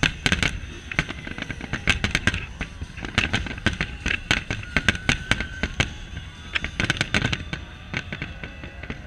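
Aerial firework shells bursting in a rapid, irregular barrage of sharp bangs that come in several dense clusters.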